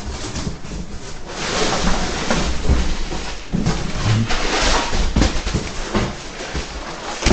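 Cardboard box and packing material rustling and scraping as a new tractor radiator is pulled out of its box, with a few short knocks as it is handled and set down on a cart.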